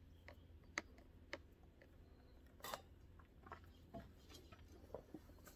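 Faint, scattered clicks and taps of a screwdriver working at a screw in a saddle's gullet plate, which won't catch yet, with light handling of the saddle. The sharpest click comes about two and a half seconds in.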